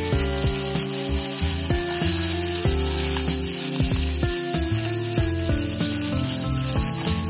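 Background instrumental music with a melody moving in steps, over a steady sizzle of food frying in a pan.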